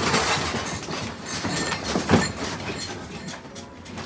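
A house and its contents shaking in a strong earthquake: continuous rumbling and rattling of furniture and household objects, with a louder knock about two seconds in. The rattling eases near the end.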